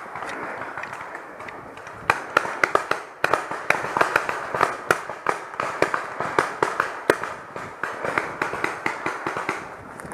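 Footsteps crunching on a dry woodland floor of twigs and leaf litter, starting about two seconds in and going at an even pace of about three steps a second, each with sharp snapping clicks.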